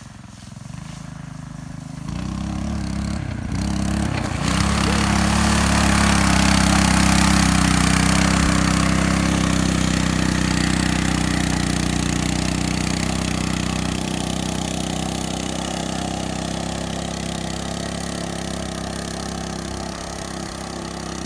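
KT196 go-kart's 196 cc single-cylinder four-stroke engine running under hard throttle as the kart ploughs through mud and water, with splashing. It grows louder a few seconds in, then slowly fades as the kart moves away across the pond.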